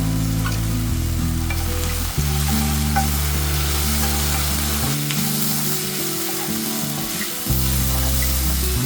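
Food sizzling in a frying pan with a few small clicks of stirring. Low background music notes change underneath.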